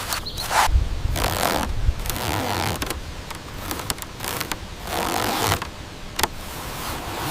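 Bamboo being worked with a hand tool: a run of uneven rasping strokes with a few sharp clicks in between.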